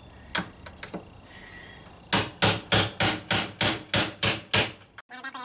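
Hammer striking metal: a couple of light taps, then about nine sharp blows in quick succession, roughly three a second, as work is done on a VW Beetle door.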